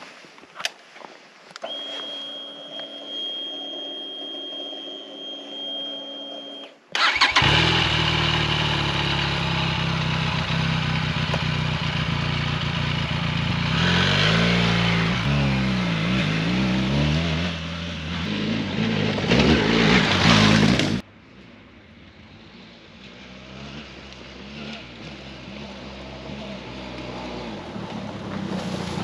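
Benelli TRK 502X parallel-twin engine, after a steady high whine of several seconds, starts suddenly about seven seconds in and runs loudly, revved up and down a few times. It cuts off abruptly, then is heard fainter and growing louder as the motorcycle rides closer.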